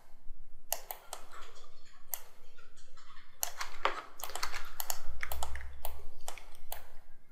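Irregular clicking of a computer keyboard and mouse, in quick, uneven runs of keystrokes and clicks that come thicker in the second half.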